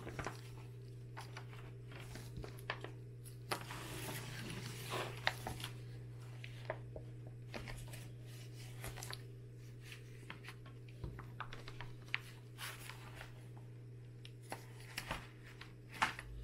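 Magazine pages rustling and crinkling, with scattered light clicks, as the spread-open issue is pressed under a plastic binder pin and its pages are turned, over a steady low hum.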